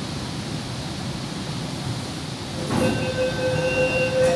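Inside a Kolkata East-West Metro car standing at the platform: a steady rushing noise, then a little over halfway through it gets louder and a steady buzzing tone starts and holds, with a sharp click near the end.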